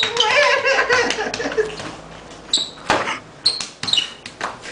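A high, wavering wail lasting about a second and a half, then scattered knocks and taps from a scuffle on the ground, with a few short high squeaks.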